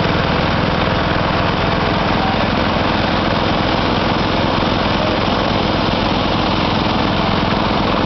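An engine running steadily at one constant speed.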